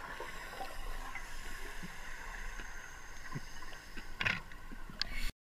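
Muffled underwater ambience heard through a camera housing: a steady low hiss with faint clicks and bubbling from scuba divers' exhaled air, with a brief louder rush of bubbles about four seconds in. The sound cuts off abruptly just before the end.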